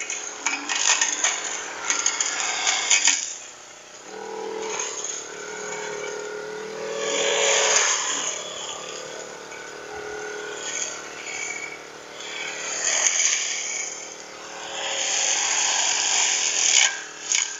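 Firman four-stroke brush cutter running and cutting grass and weeds. The steady engine note swells and eases several times as the spinning line head sweeps through the growth.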